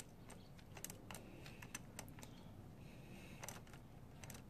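Faint, irregular metallic clicking of a socket wrench being worked in short strokes as a bolt on a GY6 scooter's oil cooler mount is slowly tightened.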